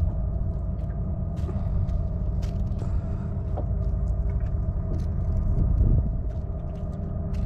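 Steady low rumble with a faint steady hum, and scattered small clicks from hands baiting a fishing hook with a worm.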